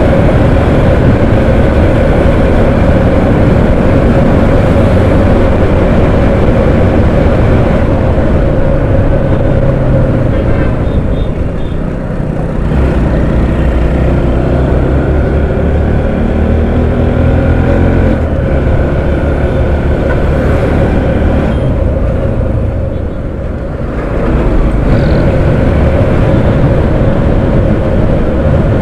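Motorcycle engine running at road speed, with wind rush over the rider's microphone. The engine note dips twice, about twelve and twenty-three seconds in, and then climbs again as the bike picks up speed.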